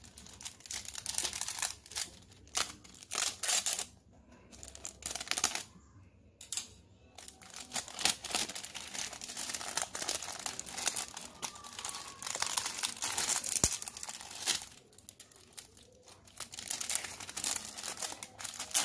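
Clear cellophane wrapping crinkling as it is pulled off a packaged table tennis rubber, coming and going with short pauses.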